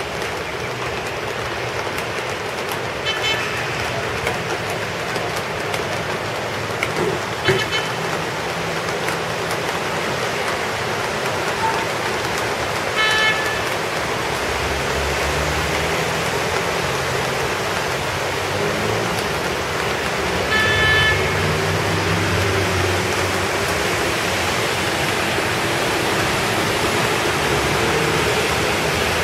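Steady hiss of heavy rain and water over a flooded street, with car traffic passing. Car horns toot briefly four times, and an engine drones past about halfway through.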